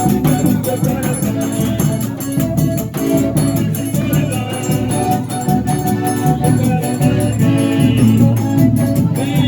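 Forró music playing loud, with a fast, steady percussion beat under held melody notes.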